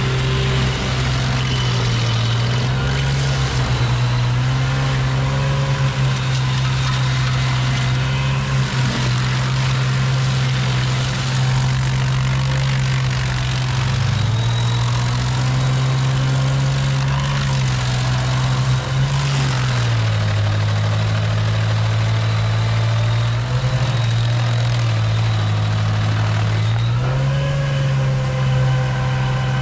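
Stump cutter's engine running steadily, its pitch dropping and picking back up several times as it works.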